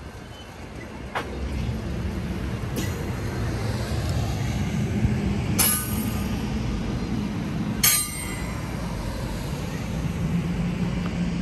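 Amtrak passenger coaches rolling past at close range, their steel wheels rumbling steadily on the rails. Four sharp clanks with a brief ringing come over the rumble, the loudest about eight seconds in.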